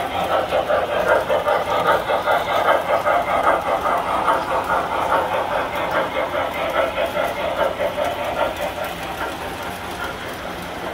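Tinplate model train running on its track: a steady, fast metallic clatter of wheels and cars that grows fainter near the end.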